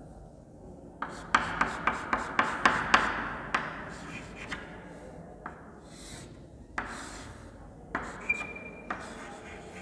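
Chalk on a chalkboard: a quick run of sharp ticks, about four or five a second, as a row of short dashes is drawn, then a few separate scraping strokes as lines are added. Near the end there is one short high squeak.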